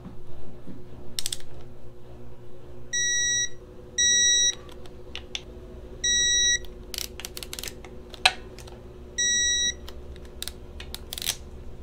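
Digital torque wrench beeping four times, each a short steady high beep of about half a second, as water pump bolts come up to their 105 inch-pound setting. Sharp clicks of the wrench on the bolts come in between.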